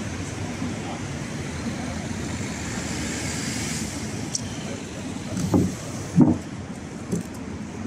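Steady street traffic noise on a city boulevard, with vehicles passing. Past the middle come two loud, dull thumps less than a second apart, then a lighter knock.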